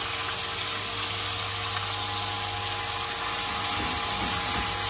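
Ground onion-garlic masala, chillies and tomatoes frying in hot oil in an aluminium wok, a steady sizzle.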